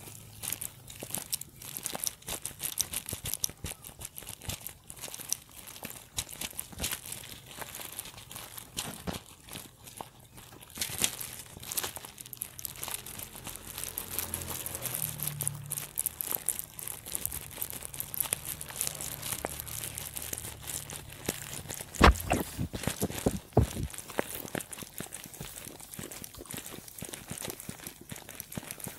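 Lambs and goats tearing at and chewing long grass at close range: a dense, continuous crackle of rustling, ripping stalks and crunching. A few louder low thumps come about three-quarters of the way through.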